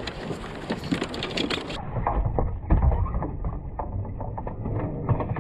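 Knocking and scraping handling noises on a kayak, over wind and water. About two seconds in the sound turns muffled and dull, with one heavier knock shortly after.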